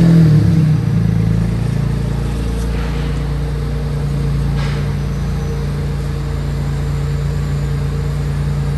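Perodua Kancil 660's three-cylinder engine running at low revs as the car creeps up onto the alignment ramp. It swells briefly at the start, then settles into a steady drone.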